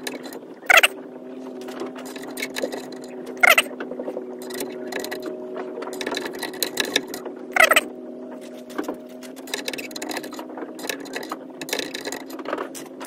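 A magnetized steel screwdriver clicking and scraping around inside the freshly tapped spark plug hole of a vintage outboard's cylinder head, picking out loose metal shavings. Three brief loud squeaks stand out, about a second in, at three and a half seconds and near eight seconds, over a steady background hum.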